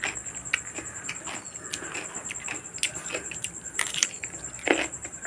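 Close-up chewing and biting of raw papaya slices: a run of short, irregular crunches, with a sharper bite about four seconds in.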